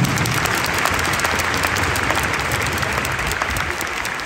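Large stadium crowd of football supporters applauding, breaking out suddenly and holding steady.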